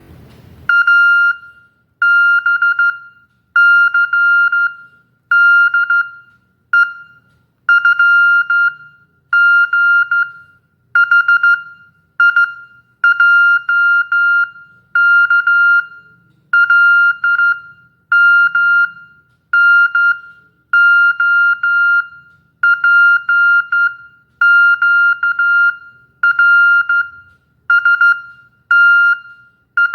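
Morse code sent as a single steady, high-pitched beep tone, keyed on and off in groups of dots and dashes with short gaps between them.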